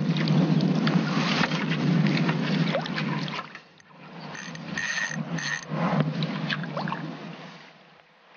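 Water splashing and sloshing as a hooked mirror carp thrashes at the surface while it is being landed. The splashing is busiest in the first three and a half seconds, then turns quieter and more scattered.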